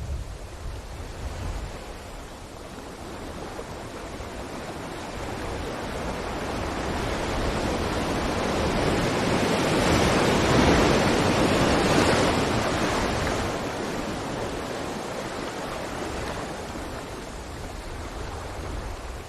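Ocean waves on a beach: one wave swells slowly, breaks and washes in loudest about halfway through, then ebbs back to a low steady rumble of surf.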